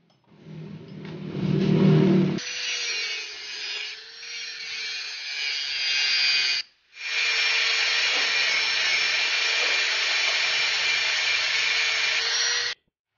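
Electric angle grinder with its disc cutting into a metal bar: a steady motor whine under a dense hissing scrape that stops for a moment just past halfway and starts again. It is preceded by about two seconds of loud low rumbling handling noise.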